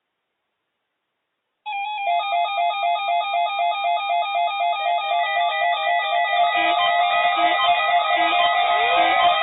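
Silence for about the first second and a half, then music starts suddenly: a fast, repeating melodic figure. About two-thirds of the way in, a low note joins, pulsing a little faster than once a second.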